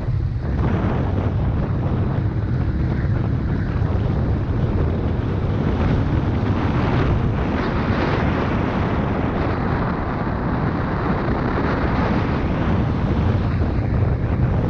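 Heavy wind buffeting on the microphone of a riding camera, with a Suzuki MX125's single-cylinder two-stroke engine running underneath.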